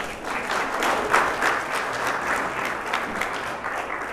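Audience applauding, strongest about a second in and dying away near the end.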